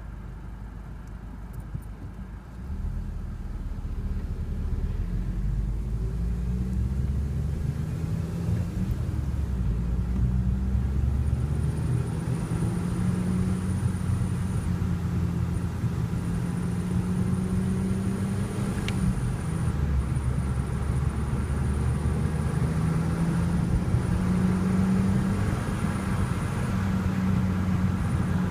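Volkswagen Golf Mk5 GTI's turbocharged 2.0 TFSI four-cylinder running, its note rising and falling with the revs, while a thin, steady, high-pitched whistle comes in about a third of the way through and holds, with a few short breaks, until near the end: the unexplained whistle noise the owner is investigating.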